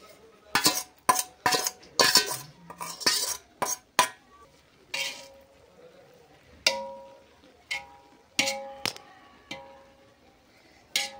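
Metal slotted spoon scraping and knocking against the inside of an aluminium cooking pot while spreading chicken over the rice. A quick run of scrapes and taps in the first few seconds, then sparser clinks that make the pot ring briefly.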